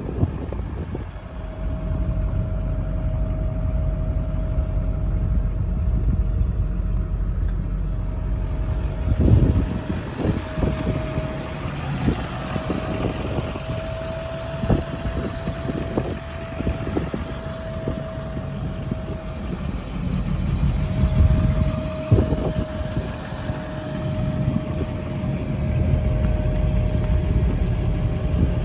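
Wind buffeting the microphone as an uneven low rumble, with a thin steady whine that drops out twice and a few sharp knocks.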